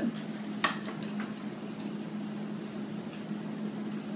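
Steady low hum over a faint even hiss, with one light click under a second in.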